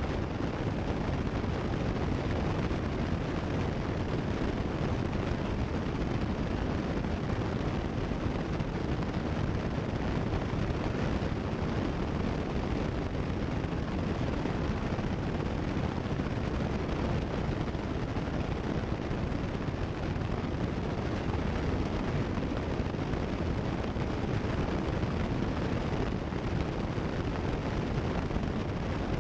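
Steady, even in-flight noise of a Cessna 172 Skyhawk in cruise, engine and airflow blended into one drone, weighted toward the low end with no distinct tone and no change.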